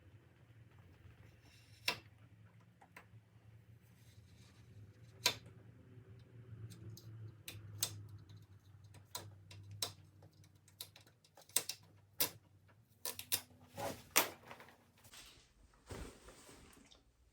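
Irregular metallic clicks and taps of hand tools and footpeg parts being handled during the installation, a few at a time, over a low steady hum.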